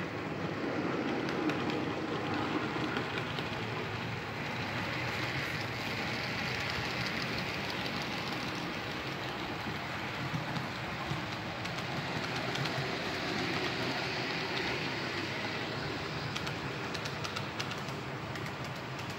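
Model trains running on a layout: the steady rolling whir of small electric locomotive motors and wheels on the track, with scattered clicks as the cars pass over rail joints and turnouts.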